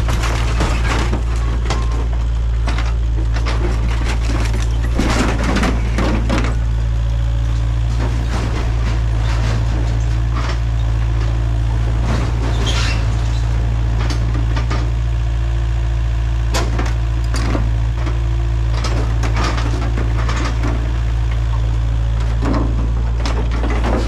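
Kubota KX057 mini excavator's diesel engine running steadily under load while its claw tears into the minibus body. Repeated irregular cracks, crunches and scrapes come from the metal and wood being broken apart.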